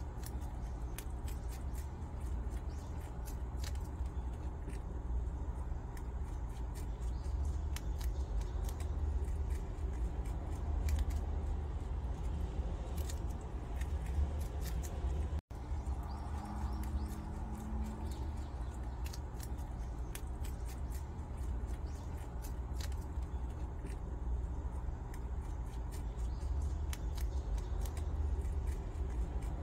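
Prairie dogs nibbling and crunching watermelon rind: a rapid, irregular run of small crisp crunches over a steady low hum.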